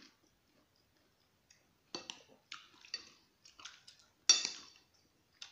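A person eating egg noodles in soup: after a quiet start, a few short chewing and mouth noises, then a loud slurp of noodles near the end that fades over about half a second.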